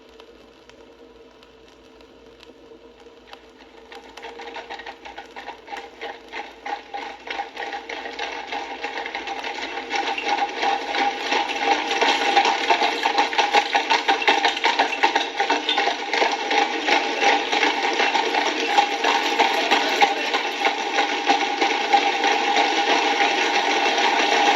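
A troop of horses approaching, a fast, dense clatter of many hooves on a hard road. It grows louder over the first ten seconds or so, then stays loud and steady as the horses go by close.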